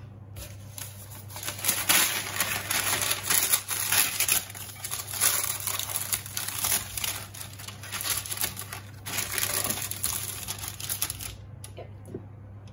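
Baking parchment crinkling and rustling as hands press and smooth it into a glass baking dish, in uneven bursts; it stops near the end.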